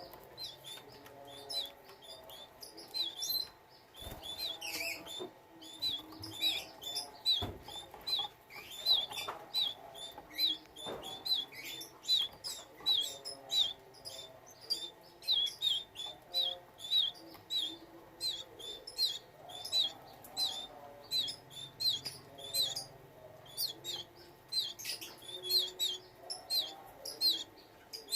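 Canaries giving short, high chirps over and over, about two to three a second.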